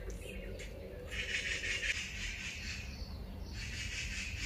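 High, rapid chirping calls from the surrounding trees and bamboo come in two spells: a longer one about a second in and a shorter one near the end. A steady low rumble runs underneath.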